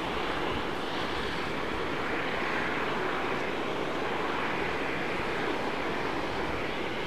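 Steady rushing hiss of edges sliding and scraping over packed snow while riding downhill, mixed with wind on the microphone; it swells a few times with the turns.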